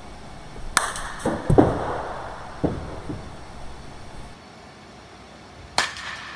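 Softball bat striking a softball off a batting tee twice: a sharp crack about a second in and another near the end, the second ringing briefly. A few duller thuds follow the first hit.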